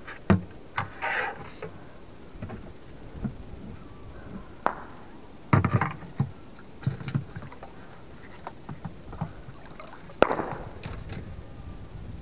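Shallow water splashing and sloshing in irregular bursts, with a few sharp knocks; the loudest, sharpest one comes about ten seconds in.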